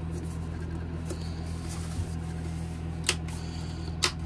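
A cardboard product box being handled and opened by hand, with two sharp clicks or taps of the cardboard about three and four seconds in. A steady low hum runs underneath.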